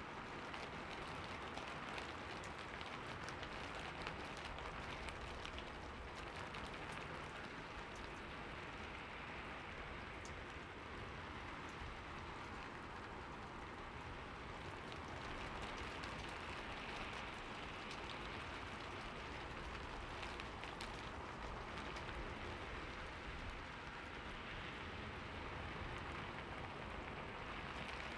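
Steady rainfall: an even hiss of rain with faint scattered drop ticks.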